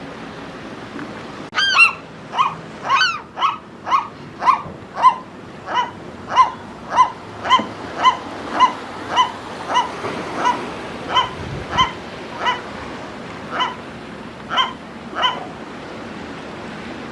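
A gull calling a long series of short, clear, repeated calls, about two a second, the first one higher and sweeping, the later ones coming more slowly near the end.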